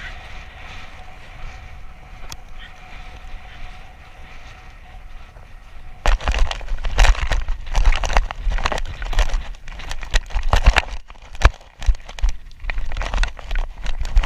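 Steady wind hiss, then, from about six seconds in, irregular heavy knocks and deep rumbling from a camera riding on a moving horse: jolts of the horse's stride, tack and wind buffeting the microphone.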